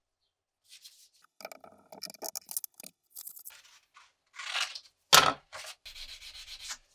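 Irregular rustling and scraping as a C-clamp is fitted over a bayonet blade in a bench vise and sheets of sandpaper are crinkled and rubbed, with one loud sharp crackle about five seconds in.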